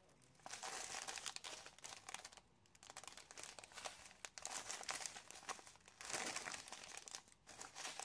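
Small clear plastic bags of diamond-painting drills crinkling as they are handled and flipped through on their strip, in several rustling bursts with short pauses between them.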